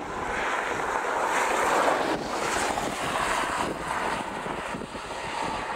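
Gusty wind buffeting the camcorder microphone: a rushing noise that swells about two seconds in and then eases.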